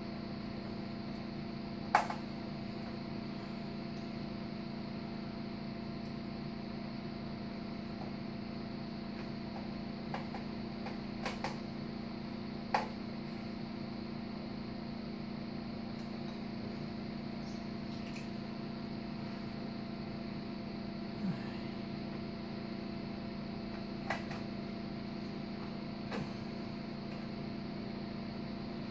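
A few sharp, scattered clicks and taps of a screwdriver and screws against a satellite receiver's metal case as the cover is screwed on, the loudest about two seconds in. A steady low hum runs underneath.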